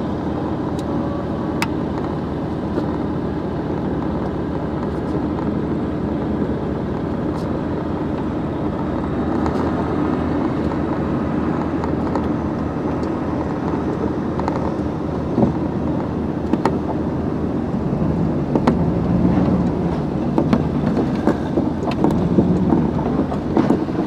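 Truck loaded with scrap metal driving: steady engine and road noise with occasional light clicks and knocks. It grows a little louder and rougher in the last several seconds.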